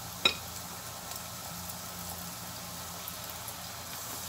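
Flour-coated cauliflower pieces frying in hot oil in a pan: a steady sizzle with faint crackles. A single sharp click sounds just after the start.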